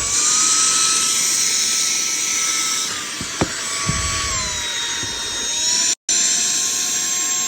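Cordless stick vacuum cleaner's motor running at its second power level with a steady high-pitched whine. The pitch eases down a little three to four seconds in, and the sound cuts out for an instant about six seconds in.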